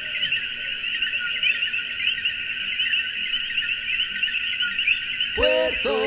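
Night chorus of many coquí frogs calling at once: a dense, steady mass of short, high, chirping two-note calls. Near the end a voice begins.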